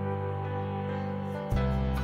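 Soft instrumental background music of held notes, with a new chord coming in about one and a half seconds in.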